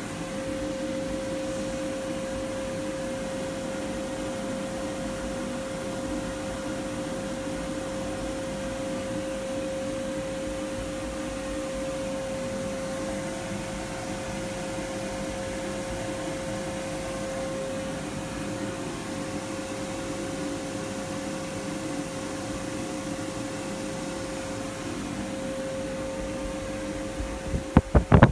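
A small motor running steadily: an even hiss with one constant mid-pitched whine. Near the end, loud irregular bumps and rustles on the microphone cut in.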